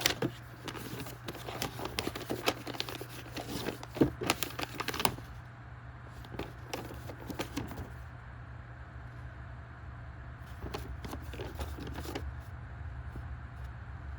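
Packaging and paper being handled: rustling and crinkling with many small clicks for about five seconds, then only a few light clicks, over a low steady hum.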